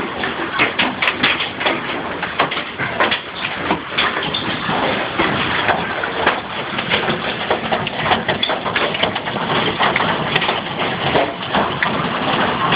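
Hailstones the size of golf balls pelting the house, a dense, unbroken clatter of many sharp irregular hits.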